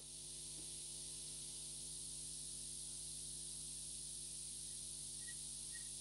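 Faint steady mains hum with a layer of hiss from the powered mixer and sound system, with a cable plugged into the mixer's AUX 1 jack. A few faint short high blips come near the end.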